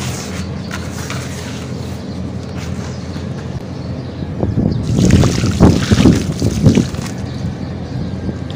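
Water poured into a basin of dry sand-cement mix and over cement chunks, splashing for about two seconds from halfway through; this is the loudest part. Before that there is a steady low rustling noise.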